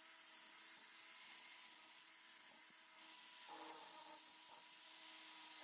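Near silence: faint room tone, a steady low hiss with a faint hum.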